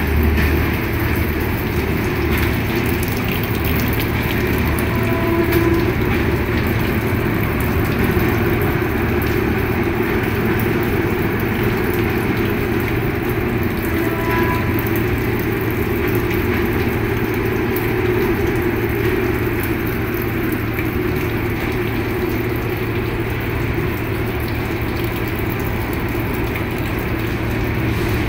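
Steady mechanical hum with a constant rushing noise from a standing train with its equipment running, heard close to the coach's undergear.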